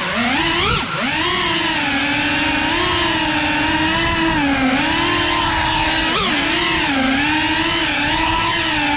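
FPV quadcopter's motors and propellers whining steadily, the pitch wavering up and down with the throttle, with a quick drop and recovery about six seconds in.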